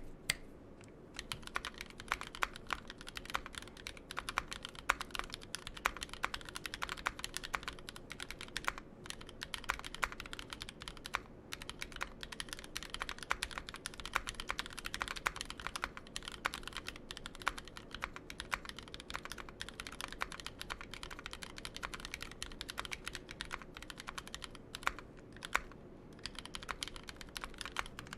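Typing test on a mechanical keyboard fitted with lubed NovelKey Cream linear switches, in an aluminium top-mount 60% board with a brass weight and GMK keycaps. Keystrokes clack in a rapid, steady run with a few short pauses.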